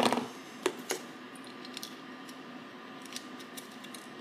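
Small electronic parts and hand tools handled on a workbench mat: a sharp click at the start, two more about a second in, then a scatter of faint ticks and taps.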